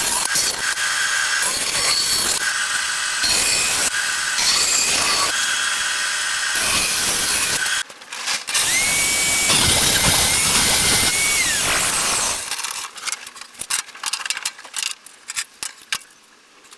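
Power tools cutting wood, loud and dense with short breaks. About halfway through, a motor spins up to a steady whine, cuts, and winds down after a few seconds. It is followed by scattered knocks and clicks of wood being handled.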